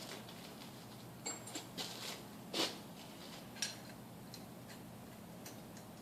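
A few light metal clinks and taps as small metal parts are handled at a bench vise, the loudest about two and a half seconds in, over a faint steady hum.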